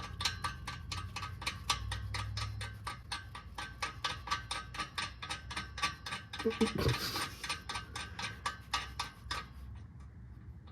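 Socket ratchet clicking in a fast, even run as the exhaust bolts are turned. The clicking stops about a second before the end.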